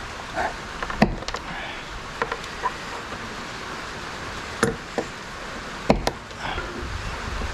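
Side cutters snipping the ends off blue electrical wire, with a handful of sharp clicks and knocks of the cutters and wire against the workbench, over steady rain noise.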